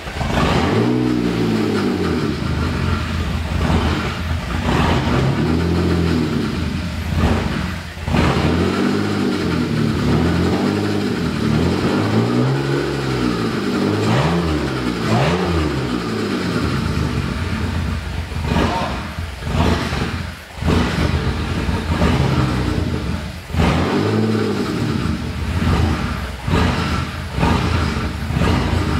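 BMW M52B28 2.8-litre straight-six running on its first start after being swapped in, still on the 2.5-litre engine's DME. It idles between repeated throttle blips, the revs rising and falling several times in quick succession in the first half and once more near the end.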